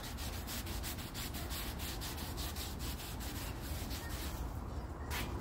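Cloth rag rubbed in quick back-and-forth strokes over new drum brake shoes, wiping them down with brake cleaner. The strokes thin out near the end.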